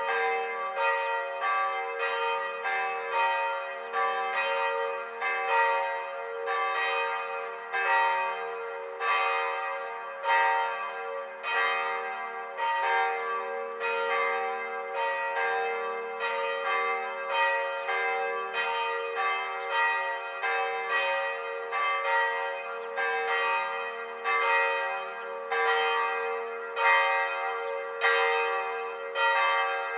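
Church bells pealing: several bells of different pitch struck one after another at an uneven pace, each ringing on and overlapping the next.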